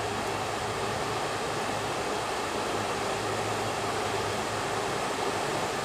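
Steady rush of a shallow mountain creek flowing over rocks and a small riffle.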